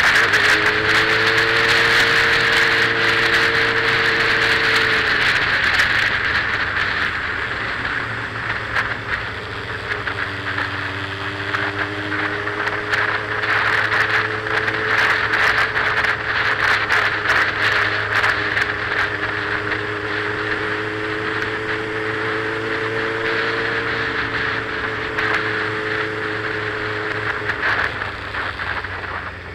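Motorcycle riding at speed, heard on board: loud wind rush and rattling buffeting over a steady engine note. The engine note drops out briefly about five seconds in, then returns and rises and falls gently with the throttle.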